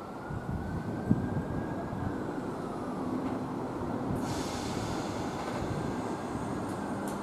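Class 321 electric multiple unit pulling slowly away from a station platform: a steady low rumble that grows gradually louder, with a faint gliding tone in the first few seconds and a sharp knock about a second in. A hiss sets in about four seconds in.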